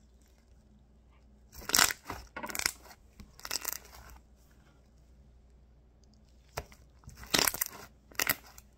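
Homemade glue slime squeezed and stretched in the hands, giving short bursts of crackly, squelching pops with quiet gaps between them.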